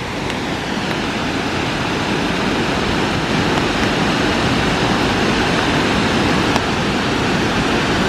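Steady rushing of the Suuçtu Waterfall, a tall falls and its cascades running high with melted snow water.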